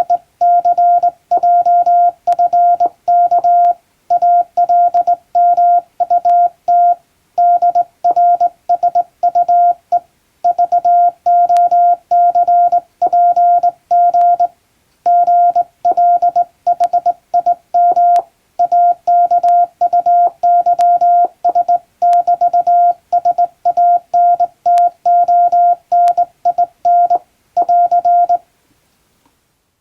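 Morse code sent by hand on a straight key: a single steady beep keyed on and off in dots and dashes, grouped into characters and words, stopping shortly before the end.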